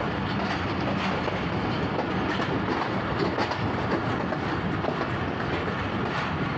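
Passenger train running along the track, heard from on board: a steady noise of wheels on rails with occasional faint clicks over the rail joints.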